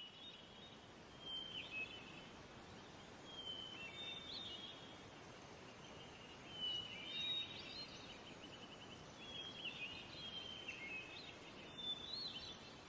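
Small songbirds singing short, high chirping phrases every second or two, faint over a steady background hiss.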